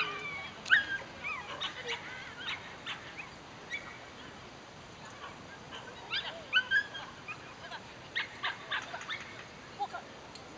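Dogs whining and yipping: short, high, sliding calls on and off, loudest about six to seven seconds in.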